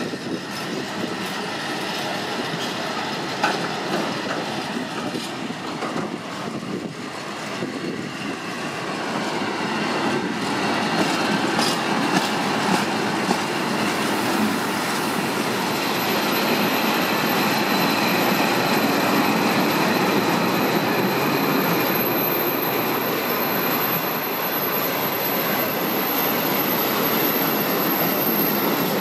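Long freight train of hooded steel-coil wagons rolling past close by, with wheels rumbling and clacking over the rail joints. It grows louder about a third of the way in, and a thin, very high-pitched wheel squeal starts about halfway and holds steady.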